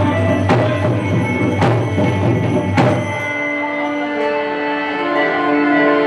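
Music: sharp percussion strikes about once a second over a steady instrumental backing, the beats stopping about three seconds in while held melody notes carry on.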